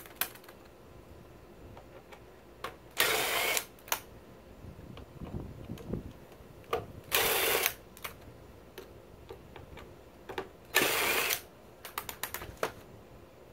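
Cordless power screwdriver with a T20 Torx bit spinning in three short bursts of about half a second each, roughly four seconds apart, backing screws out of the plastic planetary gearbox housing on a robotic mower's wheel motor. Small clicks and taps of handling come between the bursts.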